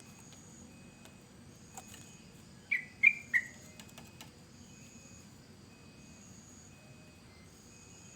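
Yellow-vented bulbul giving three quick, short chirps in a row about three seconds in, over faint high background calls.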